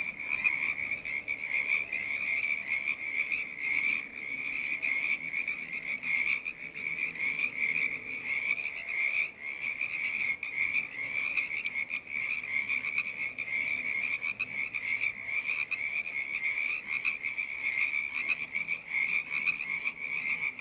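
A chorus of many frogs calling together, a dense, unbroken wall of overlapping high-pitched calls.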